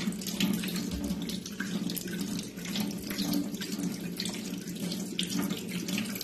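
Kitchen tap running steadily into a stainless steel sink, the stream splashing over hands that squeeze and rinse a lump of wet wheat-flour dough, with small irregular splashes throughout.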